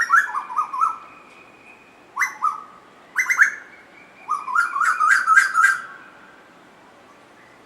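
Asian koel calling: four bursts of short, quick notes, the longest run about four and a half seconds in, climbing step by step in pitch.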